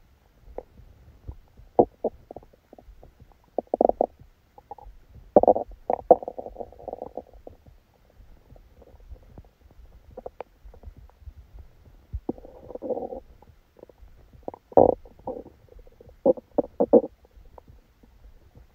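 A person's stomach growling and gurgling during a stomachache after dinner: irregular short gurgles and squelches, with longer rumbles about five and a half seconds in and again around twelve seconds, and a quick run of gurgles near the end.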